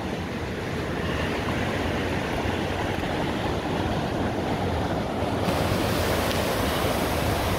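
Madawaska River rapids rushing steadily, a continuous hiss of white water that turns brighter about five and a half seconds in.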